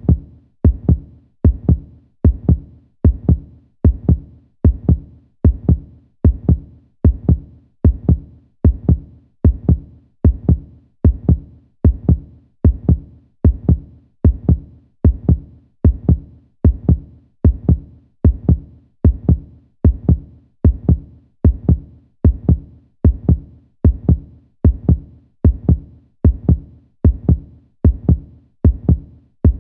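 Heartbeat sound effect: steady double 'lub-dub' thumps, deep and low, at a little over one beat a second.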